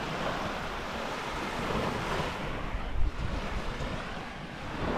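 Small waves washing gently onto a sandy beach, with wind rumbling on the microphone and a brief thump about three seconds in.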